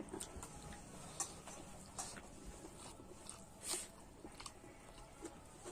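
A person eating close to the microphone: quiet chewing and small mouth clicks and smacks, with one louder burst a little past the middle.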